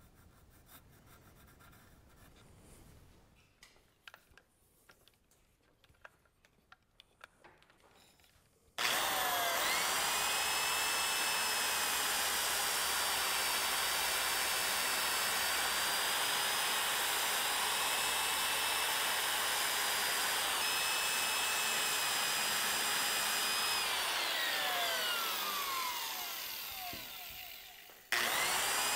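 Faint handling clicks and taps, then a handheld high-speed power tool spins up about nine seconds in and runs with a steady high whine while grinding wood to notch the hooves of a carved wooden horse. Near the end its pitch falls away as it winds down, and it starts again at the very end.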